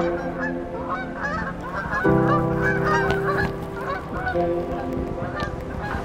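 A flock of geese honking, many short calls overlapping, over background music of sustained chords that change about two seconds in and again a little after four seconds.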